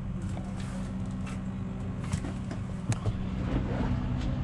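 Steady low mechanical hum, with a couple of light knocks about two and three seconds in.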